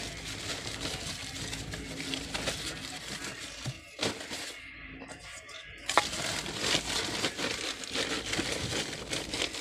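Close rustling and crinkling of dry material being handled, with sharp clicks about four and six seconds in.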